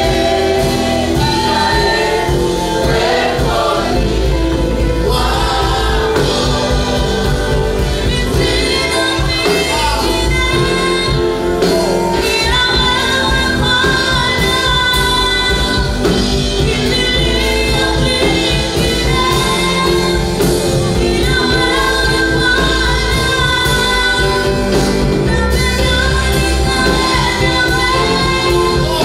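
A gospel worship song sung by a choir with a band accompanying, with a steady beat and sustained sung lines.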